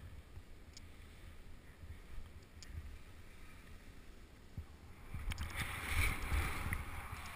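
Skis hissing and scraping over snow on a downhill run, with wind rumbling on the microphone. The ski noise swells about five seconds in as the skier turns through the snow.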